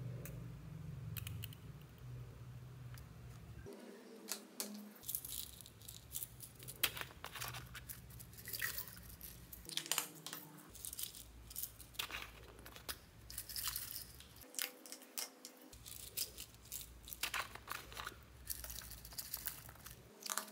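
Sequins being sprinkled onto slime in a plastic box: repeated bursts of light crinkly clicks and patter as they drop and settle, coming in several clusters over a low steady hum.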